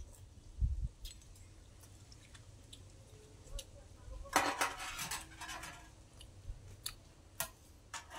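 Metal spoons clinking and scraping against a large metal serving bowl during a meal, with scattered single clinks and a run of clattering for about a second and a half, about four seconds in.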